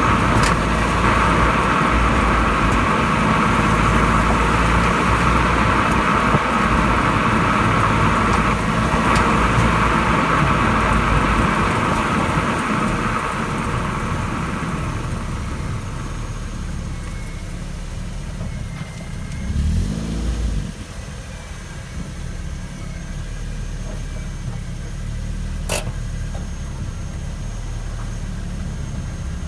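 Ford Focus Mk2.5 on the move: steady road and running noise that eases off about halfway, as if the car slows. A short rise and fall in engine pitch comes about two-thirds in, and a single sharp click near the end.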